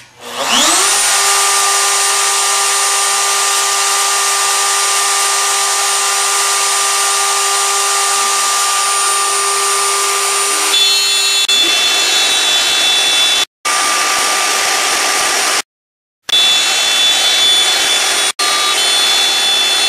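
A wood router mounted on a CNC gantry, running a 1/4-inch upspiral bit. It spins up with a rising whine, then runs at a steady high pitch while cutting the board. About eleven seconds in, the pitch and tone shift, and near the end the sound cuts out abruptly a few times.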